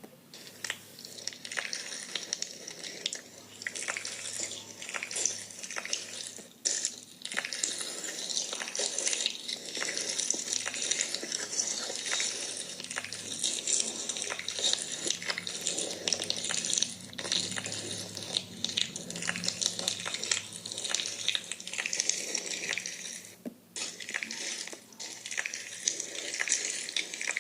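Hands squishing and kneading slime: continuous wet crackling and popping with many small clicks, broken by brief pauses.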